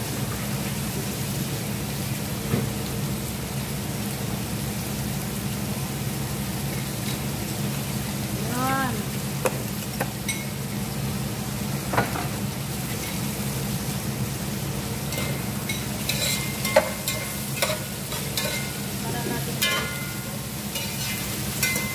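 Soup cooking in pots on a gas stove: a steady hiss over a low hum. In the last few seconds a metal spoon clinks and scrapes repeatedly against the pot as the soup is stirred.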